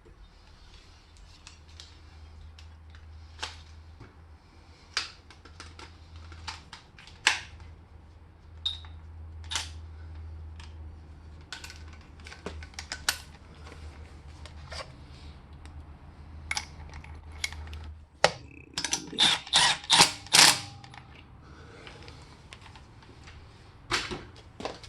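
Scattered metallic clicks and clinks of hand tools and sockets being handled, with a quick run of louder clinks about two-thirds of the way through. A faint low hum runs underneath and stops shortly before those clinks.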